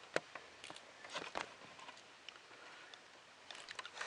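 Faint, scattered light clicks and taps from handling small plastic parts and wire connectors, a few quick ones at a time with short gaps between.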